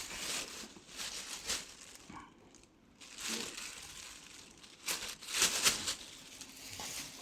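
Rustling and crinkling of bedding or covers being moved, in several short bursts, the loudest about five seconds in.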